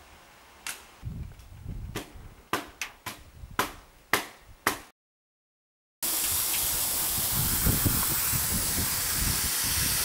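About eight sharp clicks and knocks over a low rumble, then a second of dead silence, then a steady loud hiss of steam from a Quarry Hunslet steam locomotive.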